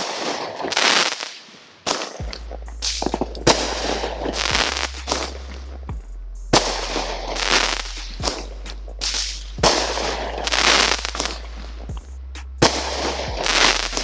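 Phantom 'Rain of Fire' consumer firework cake going off: a string of sharp shots, each followed by about a second of crackling bursts.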